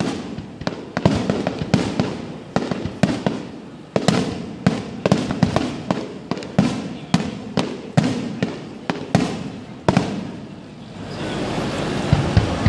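Aerial firework shells bursting, a rapid run of sharp bangs, several a second, each with a short echoing tail. About ten seconds in, the barrage stops and a steady wash of noise with a couple of last bangs takes over.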